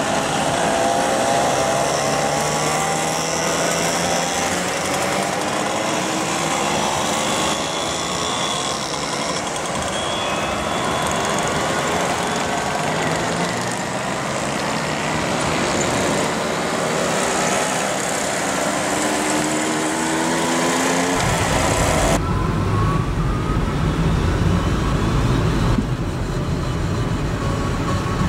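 Classic two-stroke mopeds riding past one after another, their engines whining up in pitch as they accelerate away. About 21 seconds in the sound switches abruptly to a steady, close engine and wind rumble, as heard riding among the group.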